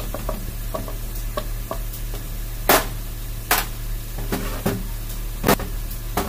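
Light clicks and taps with three sharper metal knocks as a bare two-cylinder engine block and the tools around it are handled. A steady low hum runs underneath.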